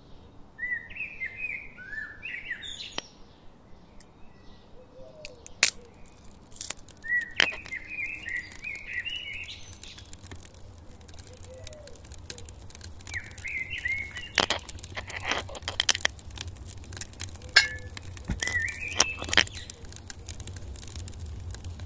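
A songbird singing short warbling phrases, four of them spaced a few seconds apart, over sharp clicks and snaps of dry twigs being broken and stacked by hand.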